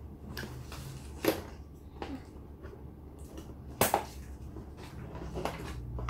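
Cardboard toy packaging being handled, with scattered light knocks and two sharper clicks, about a second in and just before four seconds in.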